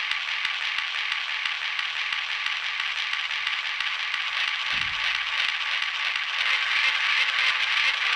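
Edison cylinder phonograph playing a cylinder: steady surface hiss and crackle coming through the horn, with no clear music or voice, swelling slightly near the end.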